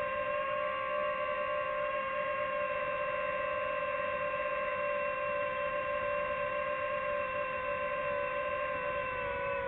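DJI FPV drone's motors and propellers whining steadily in flight, picked up close by the drone's own microphone: a constant pitched hum.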